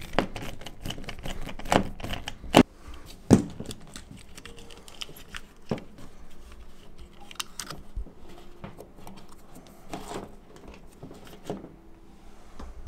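Plastic thermostat base being unscrewed and taken off a wall: scattered clicks, taps and light scraping, with two sharper knocks a couple of seconds in.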